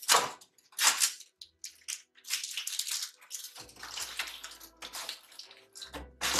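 Crinkling, crunching handling noise in about five irregular bursts, close to the microphone.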